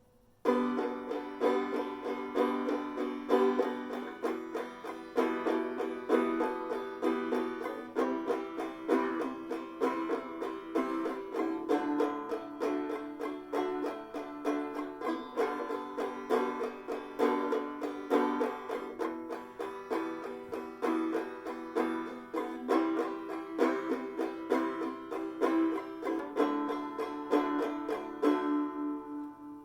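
Restored banjo being played, a steady run of quick plucked notes that starts about half a second in; near the end the playing stops and the last notes ring out.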